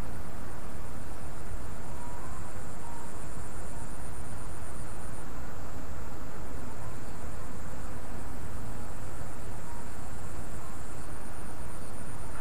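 Insects trilling high and fast over a steady rushing background noise. The highest trill breaks off about five seconds in and starts again a second later.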